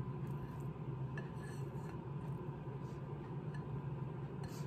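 Steady low hum of background appliance or room noise, with a few faint soft clicks as fingers loosen steamed sticky rice in a glass bowl.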